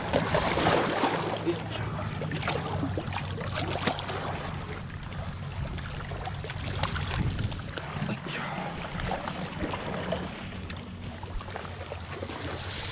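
Small waves lapping against a rocky lakeshore over a steady low drone, with scattered small clicks and knocks from handling the fishing rod and a freshly landed fish.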